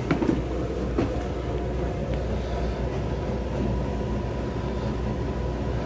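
Northern Lights marine diesel generator running steadily, a low, even hum heard through the boat from inside the cabin. A couple of light knocks sound near the start.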